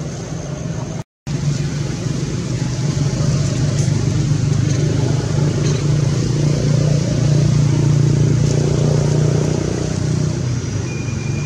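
Steady engine hum of a motor vehicle, growing louder through the middle and easing near the end, with a brief total cut-out about a second in.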